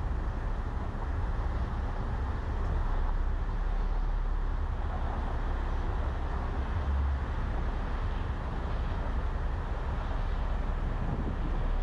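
Steady low rumble of road and engine noise from a car driving in traffic, with no distinct events.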